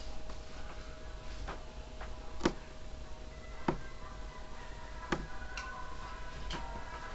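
A series of sharp knocks or clicks, about one every second and a half, over a steady faint hum.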